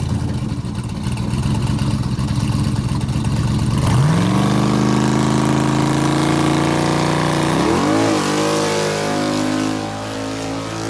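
A drag car's engine idling, then revved up sharply about four seconds in and held at high revs. The pitch wavers and drops near eight seconds, then holds steady at a lower speed.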